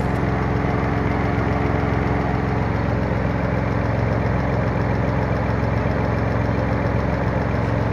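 Nissan 350Z's 3.5-litre V6 idling steadily with a fast, even ticking from the valvetrain, which the dealership put down to valve lifters going out.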